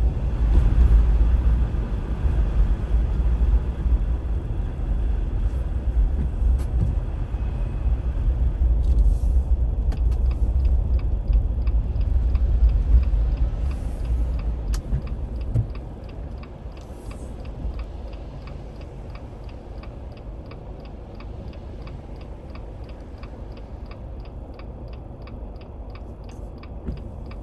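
Car driving on a snowy road, heard from inside the cabin as a steady low rumble of tyres and engine that drops away sharply about halfway through. From about ten seconds in, a steady run of evenly spaced ticks sounds over it.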